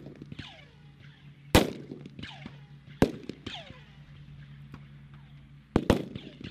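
Rifle shots on an outdoor firing range: several separate single shots from different shooters, the loudest about a second and a half in, another about three seconds in and two in quick succession near the end, each followed by an echo.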